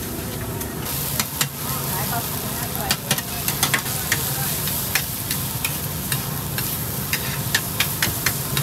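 Food sizzling in a large wok while two metal spatulas scrape and clack against the iron in quick, irregular strokes, starting about a second in.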